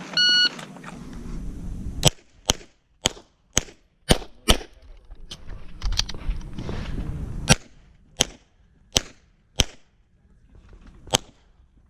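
A shot timer's short electronic start beep, then a run of pistol shots fired in quick pairs, about fourteen in all, with brief pauses between strings as the shooter moves or reloads during a USPSA stage.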